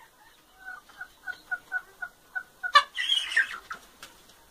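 A chicken clucking in a quick, even run of short two-note calls, about four a second. It is cut off by a sharp knock and about a second of loud, harsh noise.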